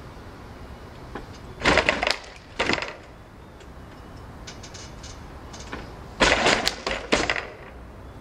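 Two clusters of sharp crackling noise, each a quick run of cracks lasting about a second, the first about 1.7 s in and the second about 6.2 s in, with a few faint clicks between.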